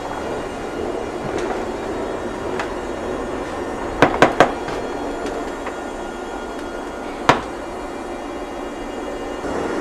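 A train running, heard from inside the cab: a steady rumble with a faint hum. About four seconds in, three sharp knocks come in quick succession, and a single sharp knock follows about three seconds later.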